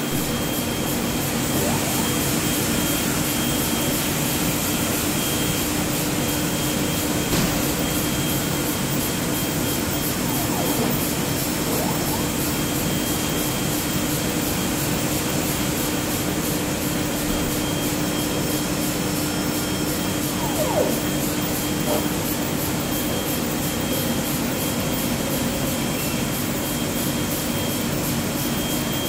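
Heidelberg sheet-fed offset printing press running steadily in the press room: a constant mechanical din with a fast, even beat.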